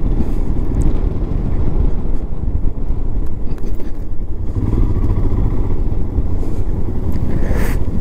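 Motorcycle running while being ridden, heard as a dense, low rumble with no clear engine note.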